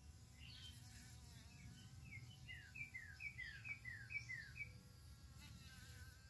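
A fly caught in a spider's web buzzing faintly and steadily. About two seconds in, a bird sings a quick run of some eight short falling notes, louder than the buzz.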